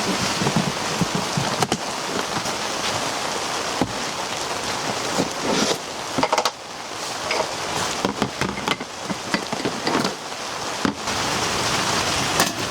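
Steady rain falling, with many separate drops striking a surface and a few louder taps scattered through.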